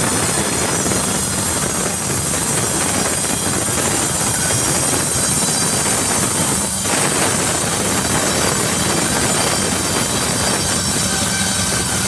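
Sawmill saw cutting through a jackfruit log: a loud, steady cutting noise that dips briefly about seven seconds in.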